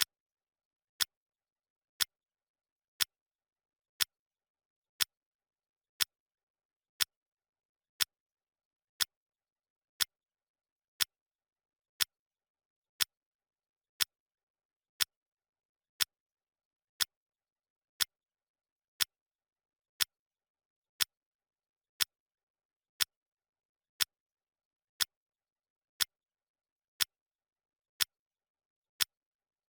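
Clock ticking sound effect of a countdown timer: one sharp, identical tick every second, with silence between.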